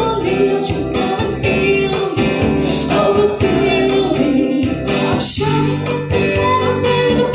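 Live amplified music: a woman singing into a microphone, accompanied by guitar.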